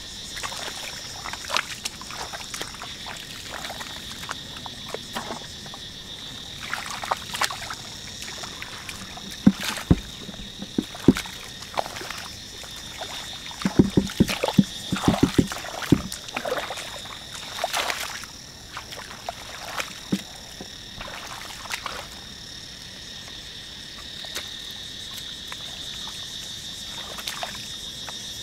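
Muddy paddy water sloshing and splashing as hands and legs churn through it, over a steady high insect chorus. A short run of rapid low clicking pulses comes about halfway through.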